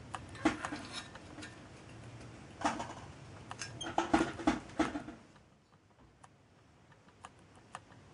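Metal clicks and scrapes as a twisted copper strip is worked into the copper flue tube of a small model steam boiler with long-nose pliers. They come in short clusters about half a second in, near three seconds, and from four to five seconds in, then only a few faint ticks follow.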